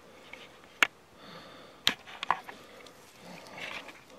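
Footsteps and rustling on woodland leaf litter, with three sharp cracks in the first half, the loudest about a second in.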